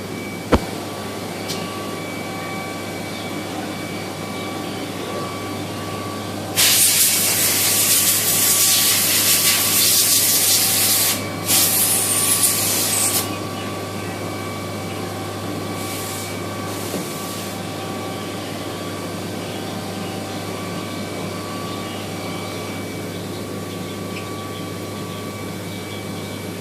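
Mazak Nexus 410A vertical machining center running with a steady hum and a thin high whine. About six seconds in, a loud spraying hiss starts, breaks off briefly, and stops about seven seconds later.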